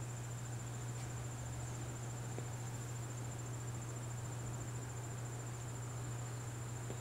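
Crickets trilling steadily on one high pitch, over a constant low hum.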